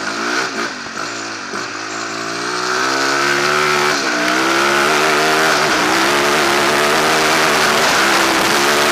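Rally motorcycle engine accelerating hard on a gravel forest track, its pitch climbing and falling back twice as it shifts up, with a loud rushing noise that builds as the bike gathers speed.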